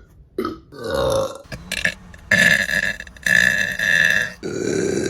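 A string of burps from women, one after another: a few short ones, two louder ones, then a long drawn-out burp starting about four and a half seconds in.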